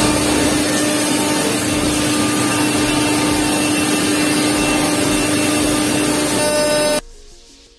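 Five-axis CNC router spindle running as its cutter mills a curved wooden workpiece: a loud, steady whirring noise with a constant hum. It cuts off suddenly near the end.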